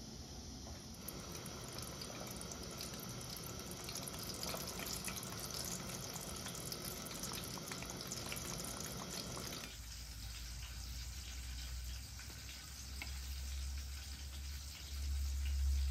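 Halved eggplants frying in hot oil in a pan: a steady crackling sizzle with many small pops. About ten seconds in it cuts off abruptly. A low rumble follows, loudest near the end, with faint light rustles from fresh herbs being handled in a plastic colander.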